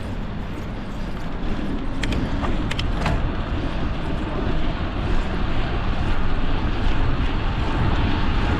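Steady wind rushing over the microphone of a moving bicycle, with road noise from the tyres, growing slowly louder. A few short clicks come about two and three seconds in.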